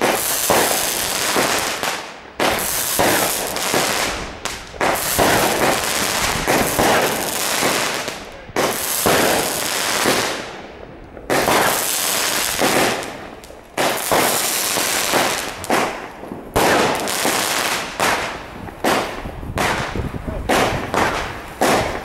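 Fireworks going off in rapid succession: dense crackling and popping in runs of a few seconds, with brief lulls between them.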